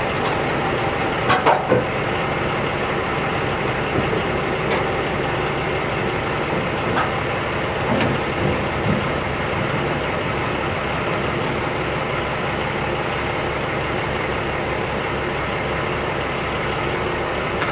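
Heavy diesel truck engine running steadily while the steam locomotive frame is moved onto the lowboy trailer, with a few sharp metal knocks, a cluster about a second and a half in and more around eight to nine seconds.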